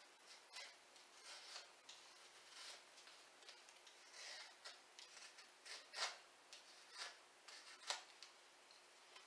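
Faint, irregular scraping strokes of a blade shaving the edges of a balsa wood handle blank, cutting the corners down into eight flat ribs; one louder stroke about six seconds in and another near eight seconds.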